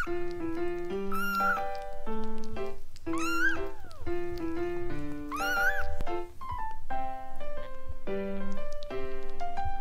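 Young golden British Shorthair kittens mewing: three thin, high calls that rise and then fall, about a second in, a little past three seconds and midway. Gentle piano music plays under them.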